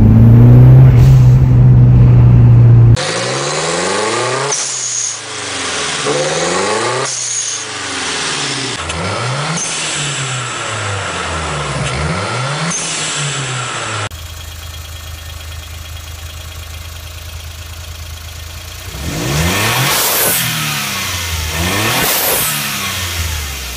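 Turbocharged car engines being blipped, each rev followed by the short hiss of a blow-off valve venting boost as the throttle closes, about four times in a row and then twice more on a second engine near the end. The first few seconds hold one loud steady engine note at high revs, and the second engine idles between its revs.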